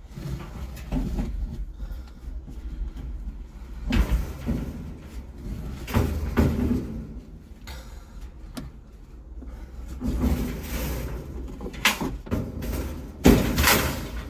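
Irregular knocking, scraping and clattering, like things being handled and moved about, with sharper bangs about four, six, twelve and thirteen and a half seconds in.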